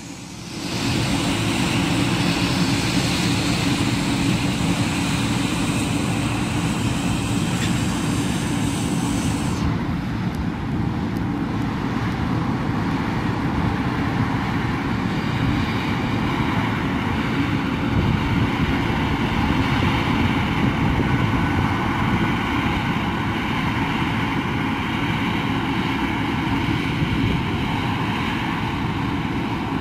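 Large diesel farm machinery running steadily under harvest load: a continuous, even engine and machine noise that swells about a second in. A high hiss drops away about ten seconds in.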